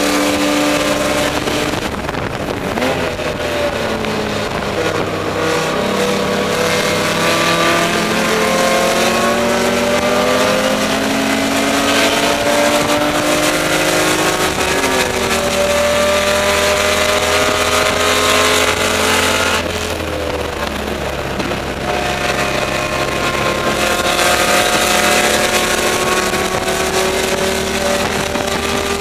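BMW E30 race car's M20 straight-six heard from inside the cabin, pulling hard with its pitch climbing through the revs and dropping at gear changes about 2 s and 15 s in. Near the 20 s mark it lifts off and quiets for a couple of seconds before accelerating again, over steady road and wind noise.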